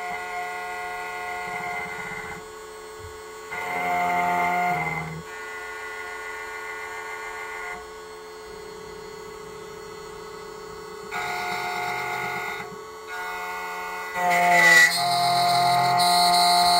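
SEC-E9 electronic key-cutting machine working on an Acura MDX key blade. Its motors give a steady whine that shifts in pitch and loudness as the cutter and carriage move, louder for a couple of seconds about 4 s in and again about 11 s in, then rising again near the end.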